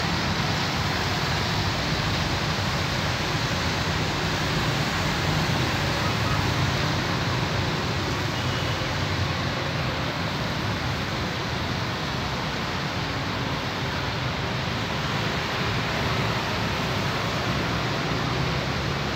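Steady roar of road traffic, cars and motorbikes on a busy city street, blending into an even wash with no single vehicle standing out.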